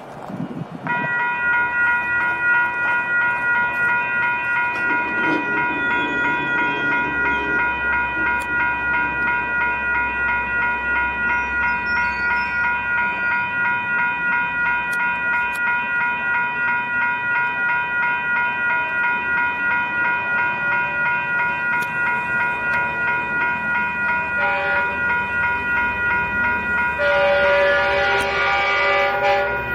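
Railroad grade-crossing warning bell ringing with an even, rapid pulse, starting about a second in. Near the end a passenger train's horn sounds, a brief toot and then a longer blast.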